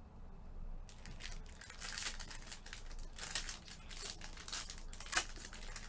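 Foil trading-card pack wrapper being torn open and crinkled by hand, an uneven run of crackles and rustles with one sharp crack about five seconds in.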